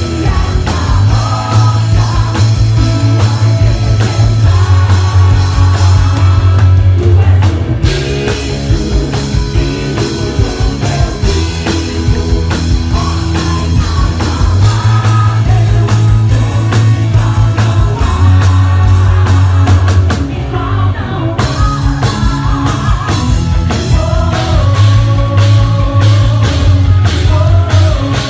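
Worship band playing a rock-style song, with a driving drum-kit beat, bass and electric guitar.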